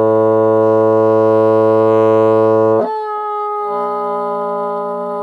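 Bassoon holding a low A, then slurring up two octaves about three seconds in to a high note that comes out thin, poorly tuned and short of a true high A, with an extra lower tone entering partway through it. It is played with no change of embouchure, voicing or air support, so it doesn't sound great.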